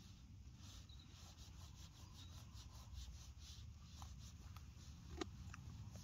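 Faint scraping of a small knife whittling a wooden stick, in short repeated strokes, with one sharper click about five seconds in.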